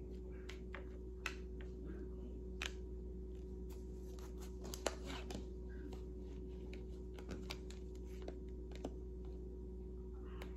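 Light, irregular clicks and taps, a few a second, over a steady low electrical hum.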